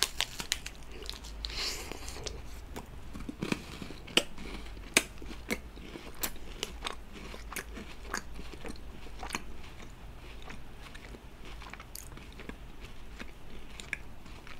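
Crisp bites into a KitKat chocolate-covered wafer bar, then chewing with scattered crunches as the wafer breaks up.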